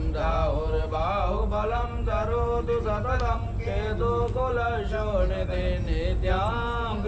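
A Hindu priest chanting wedding mantras in a continuous sung line, with held, gliding notes over a steady low rumble.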